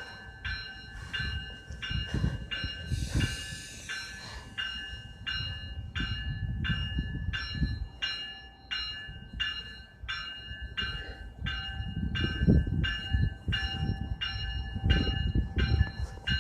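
Railroad grade-crossing warning bell dinging steadily about twice a second, over the low rumble of a train moving on the rails. A short hiss of air comes about three seconds in.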